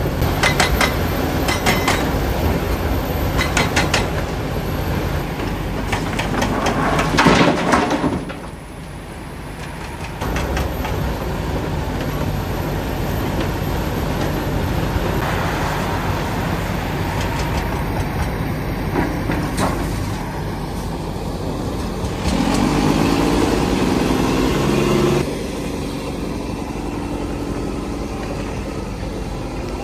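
Heavy earthmoving machinery at work: diesel engines running, with sharp clanks and knocks of steel in the first several seconds. The sound changes abruptly a few times, and about two-thirds in a louder engine spell with a steady pitched drone lasts about three seconds.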